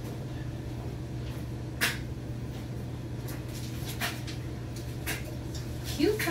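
Steady low hum in the room, with a few light clicks and knocks from household objects being handled. The sharpest knock comes about two seconds in.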